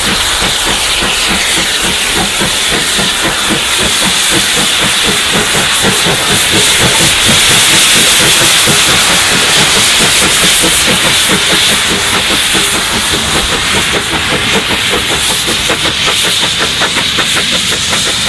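Steam locomotive 35028 Clan Line, a three-cylinder rebuilt Merchant Navy class Pacific, passes close while working a train, its open cylinder drain cocks hissing over a rhythmic exhaust beat. It is loudest as the engine goes by about eight seconds in; the beat stands out as it draws away.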